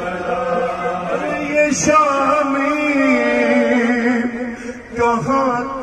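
A man chanting a noha, a Shia lament, into a microphone in long, drawn-out, wavering notes. There is a short knock about two seconds in.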